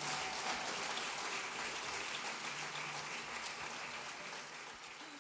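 Audience applauding, an even crackle of many hands clapping that slowly fades toward the end.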